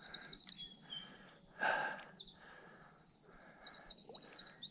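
Several songbirds singing over one another in rapid runs of repeated high notes and trills. A short burst of noise comes in under them about one and a half seconds in.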